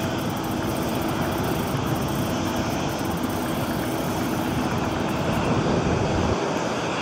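Airbus A330-300 airliner on final approach to land, its jet engines giving a steady, noisy rumble. The deepest part of the rumble drops away about six seconds in.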